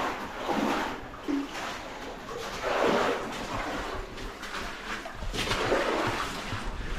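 Water splashing and sloshing in irregular surges as people move through a shallow cave stream.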